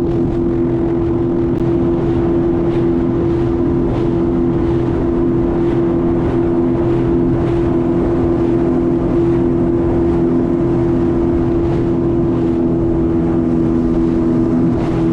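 2020 Sea-Doo FishPro jet ski's engine running at a steady cruising speed, an even, unchanging drone, with faint regular knocks about twice a second.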